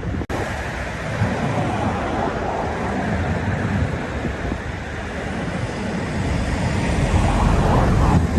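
Sea surf washing in, with wind rumbling on the microphone. The noise swells toward the end as a wave comes in. There is a momentary drop-out just after the start.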